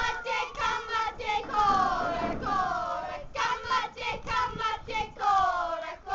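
A group of children chanting a Māori haka in unison: short shouted phrases, with drawn-out cries falling in pitch about two seconds in and again near the end.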